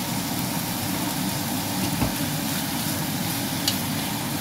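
Thinly sliced beef sizzling in oil in a nonstick frying pan over a steady low hum, with two light clicks as metal tongs touch the pan about two seconds in and near the end.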